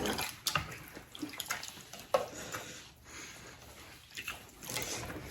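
Close-up eating sounds: chewing with wet mouth clicks and smacks, a handful of sharp clicks scattered through.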